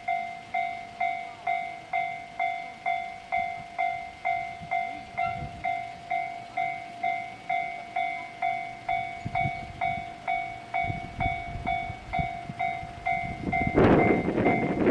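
Level-crossing warning bell ringing steadily at about two dings a second. A JR E233-series electric train's rumble builds from about nine seconds in, and the train reaches the crossing and passes loudly near the end.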